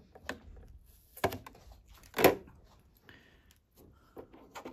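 Packing tape being peeled off a hard glossy plastic cover, giving a few sharp crackles and plastic ticks, the loudest about two seconds in, with quieter rustling afterwards.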